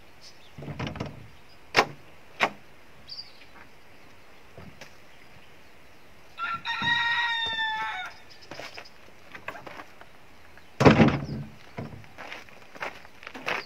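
A rooster crows once in the middle, one held call of about a second and a half that falls slightly at the end. Before it come a few sharp clicks and knocks as the wooden door is opened, and near the end a louder thump.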